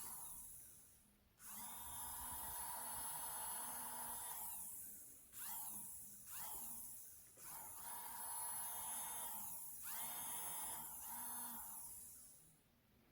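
Electric nail drill running in several long stretches with a high whine and hiss. Its speed drops away and picks up again four or five times, so the whine falls and rises at each break, then it winds down near the end.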